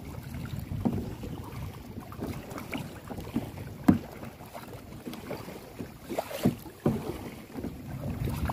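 Kayak paddling: the paddle dipping and splashing at irregular strokes, with water lapping and wind rumbling on the microphone.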